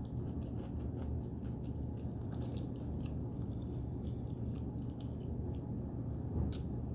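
Close-miked chewing of a mouthful of beef burrito: small, irregular wet mouth clicks over a steady low background hum, with one louder click near the end.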